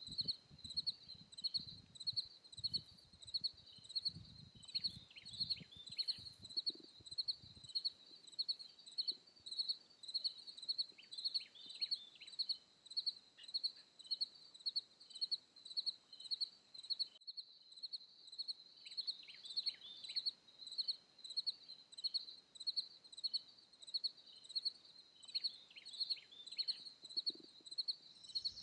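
An insect chirping steadily at about two chirps a second, with a brief gap partway through. Now and then a bird gives short falling calls in runs of three or four. Fabric rustles during the first several seconds as someone climbs into a hammock.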